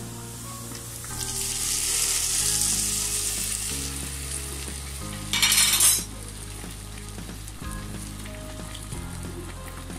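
Hot oil with fried onions and dried red chillies hitting the simmering nihari broth, sizzling and hissing as the tempering (baghar) goes in. A brief, much louder hiss comes about five seconds in.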